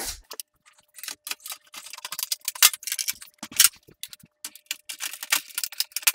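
A steel desktop PC tower case being closed up: a rapid, irregular run of clicks and knocks as the metal side panel is handled and fitted back on.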